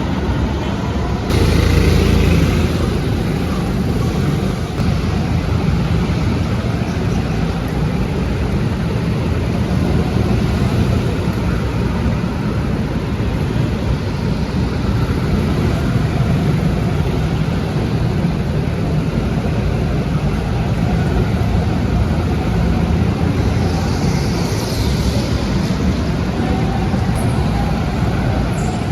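Steady, loud rumbling noise of a moving vehicle, swelling louder briefly about a second in.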